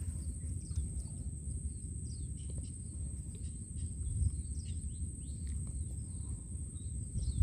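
Outdoor ambience by open water: birds chirping in many short calls over a steady high-pitched whine and a low rumble, with a single sharp knock right at the end.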